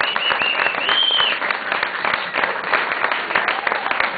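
Audience applauding, with a few short whistles and then a longer one over the clapping in the first second and a half.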